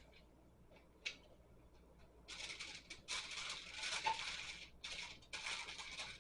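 Crinkling and rustling of kitchen wrap (foil and plastic film) being handled around a foil-covered pan, in a string of bursts with short gaps, after a single click about a second in.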